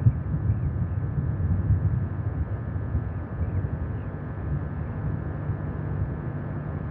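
Wind rumbling on an outdoor launch-pad microphone in the last seconds before a Proton-M rocket's engines ignite: a low, steady rumble with no engine sound yet.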